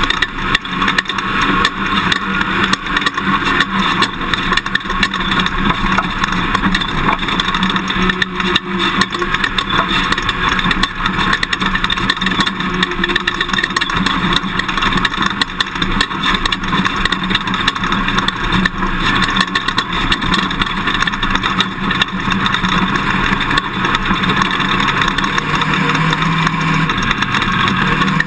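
Toyota Tundra pickup driving off-road: steady engine note under a constant din of rattling and jolting. The engine note rises a little near the end.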